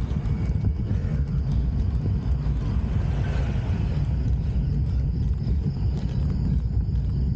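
Steady low rumble of wind and road noise on a bicycle-mounted action camera's microphone as the bike climbs slowly on asphalt.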